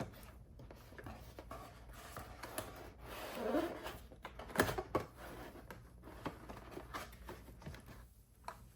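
Unboxing handling noise: cardboard and plastic packaging rustling and scraping, with scattered clicks and a sharp knock about four and a half seconds in.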